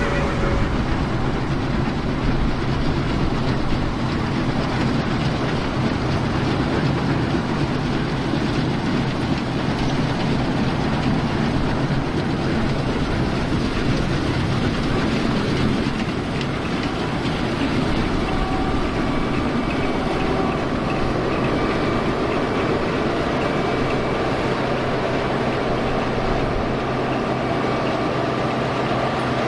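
International 1460 Axial Flow combine running steadily, a constant low engine hum under the dense rumble of the threshing machinery.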